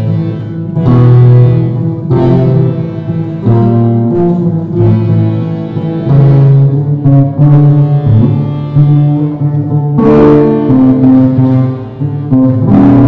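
A live acoustic ensemble plays: sustained squeezebox chords with several guitars over a low held bass line, the chords changing every second or so.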